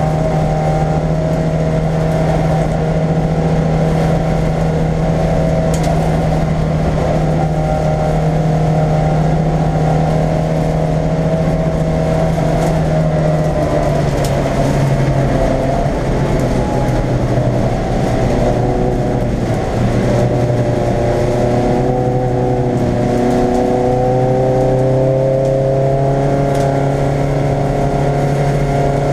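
Race car engine heard from inside its stripped, roll-caged cabin, running hard under load. Its pitch holds steady, unsettles about halfway through, then climbs steadily near the end.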